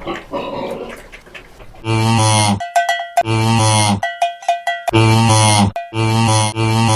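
A cow mooing in four short, loud calls, with a cowbell ringing in the gaps between them. A rougher, unpitched animal sound comes before the first moo.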